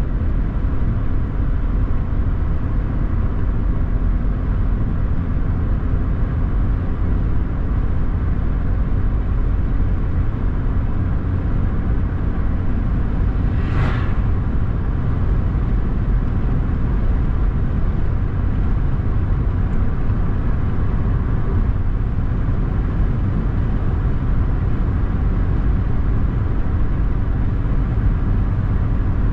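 A car driving on a road: a steady low rumble of engine and tyre noise, with one brief sharp noise about halfway through.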